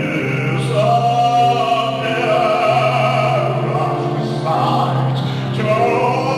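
Baritone singing a lyrical song in an operatic style with piano accompaniment, holding long sustained notes.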